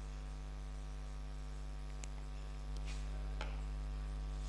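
Steady electrical mains hum, with a few faint squeaks and taps of a marker writing on a whiteboard.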